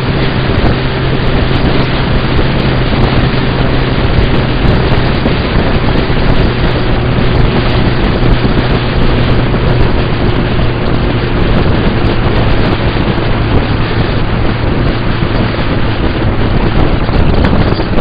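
Heavy wind rush on the microphone of a motorcycle at steady road speed, over the even drone of a Suzuki Bandit 1200's inline-four engine holding a constant pitch.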